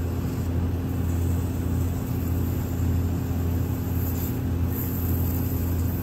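Steady low mechanical drone of running machinery, with an even hum beneath a broad hiss.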